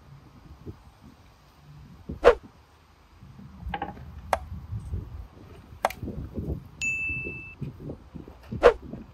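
Sharp knocks on a wooden cutting board as a large catfish is cut and handled, about five of them, the loudest a couple of seconds in, over softer thuds of the fish being moved. Near the end a short, steady electronic chime from a subscribe-button animation sounds.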